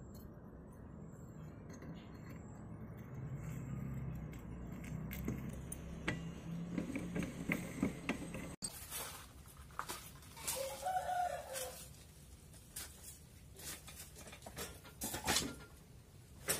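A chicken calls once for about a second, around eleven seconds in, over scattered light clicks and taps.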